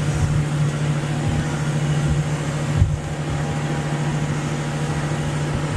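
An engine running at a constant speed: a steady low drone with rumbling underneath and a brief knock about three seconds in.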